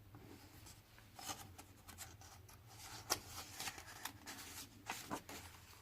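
Paper rustling and crinkling in a string of small ticks, from about one second to past five seconds in, as a page of a hardback picture book is turned and smoothed down.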